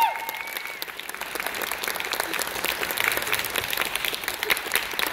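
Audience applauding steadily after a piano performance, with a short vocal whoop from the audience right at the start.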